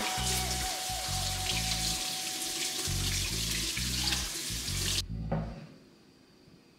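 Background music with a steady beat under a loud, even hiss that cuts off abruptly about five seconds in. Both then fall away to near quiet near the end.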